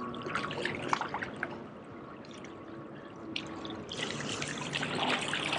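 Water lapping and trickling among the rocks at the foot of a jetty, with small scattered clicks; it grows a little louder near the end.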